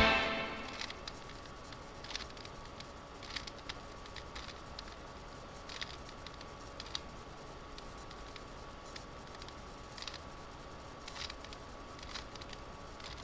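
Plastic 3x3 Rubik's cube being turned by hand: faint clicks and scrapes as its layers twist, about one turn a second, over a faint steady hum.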